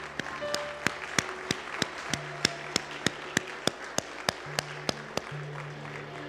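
One person's hands clapping a steady beat close to the microphone, about three claps a second, starting about a second in and stopping after about five seconds. Soft held keyboard notes sustain underneath.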